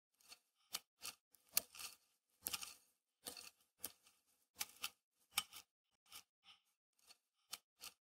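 Metal hoe blade chopping and scraping into dry soil and grass: a series of short, crisp crunches, about two a second at uneven spacing.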